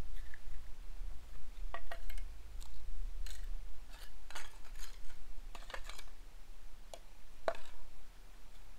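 Broken roof tile fragments clinking against each other as they are picked up by hand from the grass: a dozen or so irregular sharp clicks, the loudest about seven and a half seconds in.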